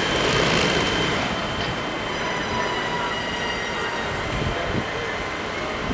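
Steady running noise of parked fire engines, their diesel engines and pumps going: a rumbling hum with thin, steady high whining tones over it.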